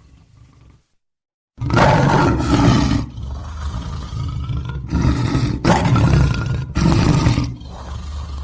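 Lion roaring. After a brief silent gap, a loud roar starts about one and a half seconds in and goes on as a run of roars about a second long each, with lower rumbling between them.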